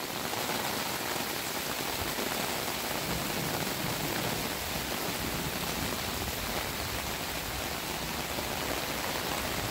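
Heavy rain pouring steadily onto a flooded, water-covered lawn: a dense, even hiss with no letup.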